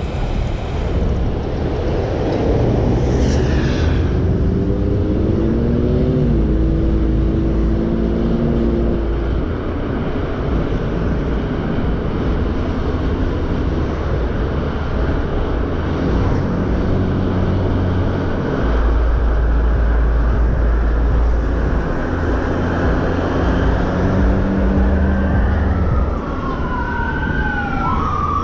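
Vehicle engines and road rumble in city traffic, with engines rising in pitch as they accelerate now and then. Near the end an emergency-vehicle siren starts, its wail sweeping up and down.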